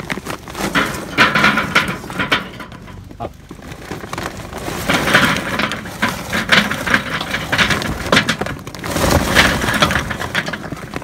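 Kingsford charcoal briquets poured from the bag onto a kettle grill's wire grate, clattering and knocking together in three pours.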